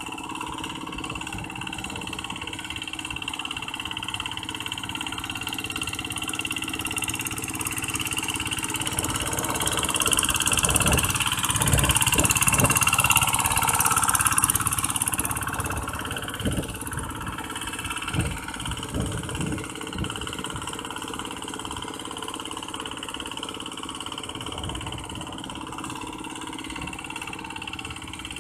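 Two-wheel walk-behind hand tractor's single-cylinder diesel engine running steadily under load as it plows a flooded rice paddy. It grows louder for a few seconds around the middle.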